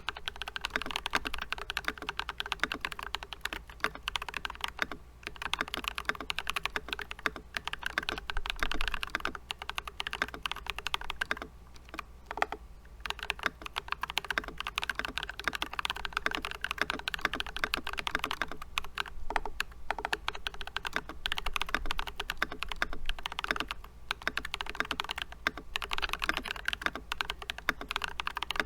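Continuous fast typing on a GK64XS 60% mechanical keyboard with Glorious Holy Panda tactile switches: a dense, irregular stream of key clicks, with brief lulls about twelve and twenty-four seconds in.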